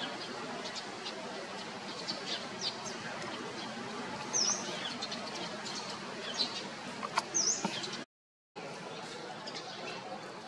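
Outdoor ambience: a steady background hiss with scattered short bird chirps, including two sharp dipping chirps about four and seven and a half seconds in. The sound drops out completely for about half a second near the end.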